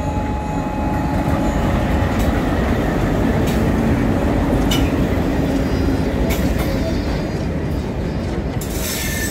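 Locomotive-hauled express passenger train passing close along a station platform: the locomotive's rumble, then the coaches running by, with sharp wheel clicks over rail joints.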